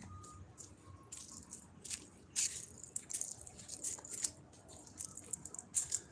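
Irregular crackling and rustling, many short sharp scrapes at no steady rhythm: handling and walking noise from a phone carried by hand on a walk.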